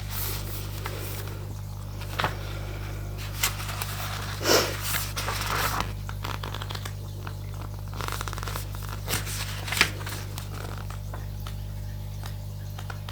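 Oracle cards being shuffled and handled: irregular scrapes, flicks and soft clicks over a steady low hum.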